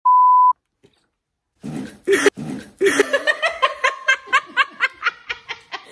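A short, steady beep of a TV test-card tone lasting about half a second. After a second of silence, two women burst out laughing loudly, going into rapid rhythmic peals of laughter, about six a second.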